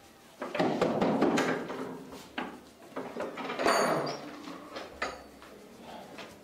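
Wooden door rattling and knocking as it is pushed open, with a few sharp clicks.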